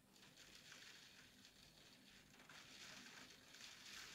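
Heavy rain falling, faint and steady, swelling a little in the second half.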